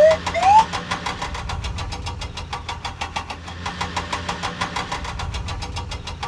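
Cartoon vehicle engine sound effect chugging steadily at several beats a second over a low hum, after a short rising whistle-like glide right at the start.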